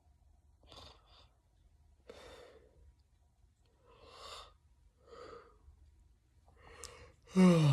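A person breathing out in several soft, breathy puffs about a second apart. Near the end comes a short, louder vocal sound that falls in pitch.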